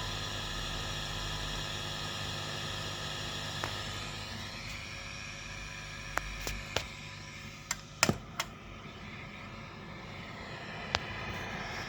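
Marshall DSL40CR valve guitar amplifier idling with its controls turned up to max and no guitar played: a steady, quiet hiss from the amp's noise floor, the sign of an amp that is very quiet and working as it should. A few sharp clicks come between about six and eight seconds in.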